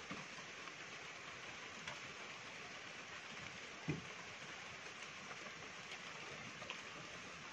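Faint, steady background hiss, with a single soft low thump about four seconds in.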